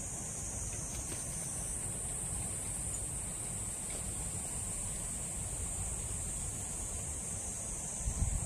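Insects droning steadily at a high pitch, over a low rumble that swells near the end.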